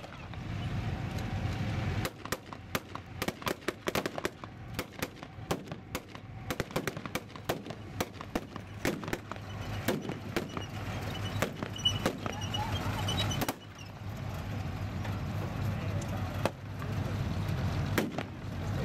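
Gunfire from a WWII battle re-enactment, blanks fired at a distance: many sharp shots at irregular intervals, some in quick bursts like machine-gun fire, over a low steady rumble.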